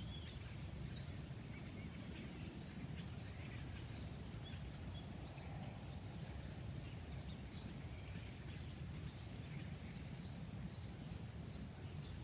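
Faint outdoor ambience: a steady low rumble with a few scattered, faint, high bird chirps.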